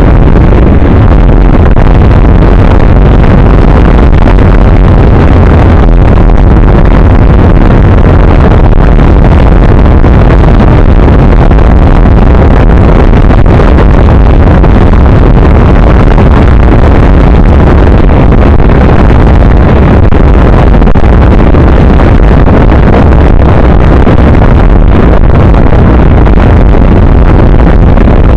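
Loud, steady roar of wind and engine noise on a motorcycle-mounted camera riding at road speed, the recording overloaded and distorted.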